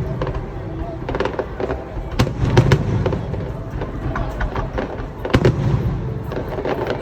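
Fireworks going off: sharp cracks over a steady low rumble, with a cluster of bangs about two seconds in and another just past five seconds.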